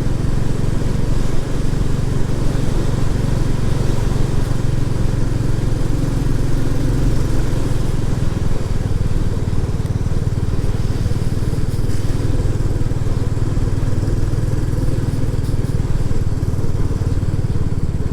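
Royal Enfield Classic 350's single-cylinder engine running steadily under way, with a continuous rush of riding noise over the engine.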